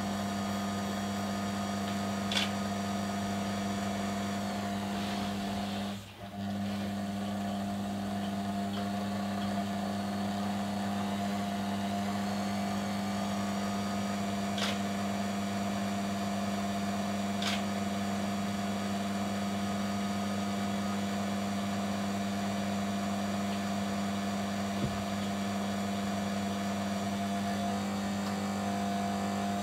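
Small electric motor of a rod-building power wrapper running steadily, turning a rod blank while it is heated, with a hum that dips briefly about six seconds in. A few faint ticks.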